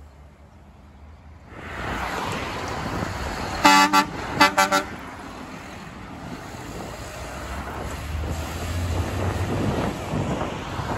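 Dual Grover air horns (1700 low, 1680 high) on an International 2574 dump truck, sounded in three short blasts, the first the longest, a little under four seconds in. After the horns, the truck's engine and passing traffic rumble.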